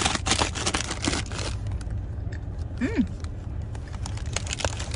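Crinkling and crunching for about a second and a half, then scattered soft clicks, with a brief hummed 'mm' about three seconds in; a low steady hum lies underneath.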